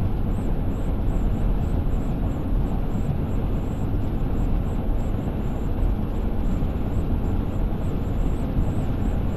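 Steady road noise inside a car cruising at highway speed, mostly a low rumble from the tyres and engine.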